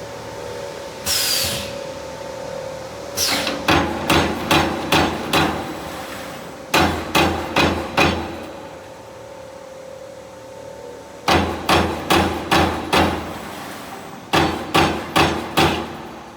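CNC turret punch press punching sheet metal. It works in four quick runs of four to six sharp punch strokes, a little over two a second, with pauses between the runs while a steady machine hum carries on. A short hiss comes about a second in.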